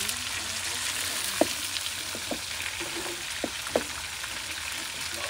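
Catfish frying in hot pork lard in a pan: a steady sizzle, with a few sharp pops, the loudest about a second and a half in and two more near the end.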